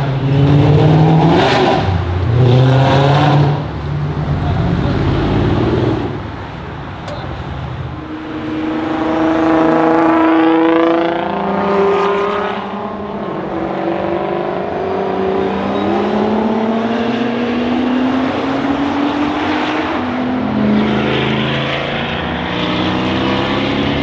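High-performance car engines accelerating hard one after another, the revs climbing again and again through gear changes. Among them are a Nissan GT-R and, near the end, a Mercedes C63 AMG Black Series V8.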